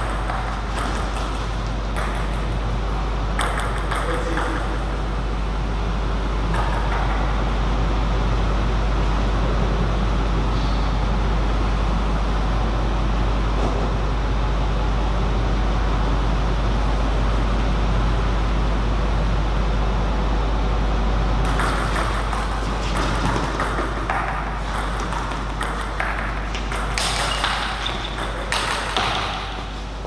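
Table tennis ball clicking off bats and table in quick rallies, once in the first few seconds and again from about 22 s until near the end. In between there is only a steady background hum.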